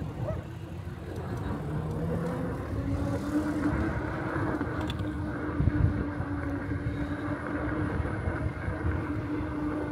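A motor vehicle humming steadily, with a low rumble of wind on the microphone while riding.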